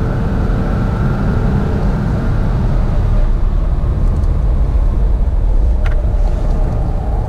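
A car driven hard on a race track, heard from inside the cabin: a steady, loud low rumble of engine and tyre and road noise, with no gear changes or sudden events.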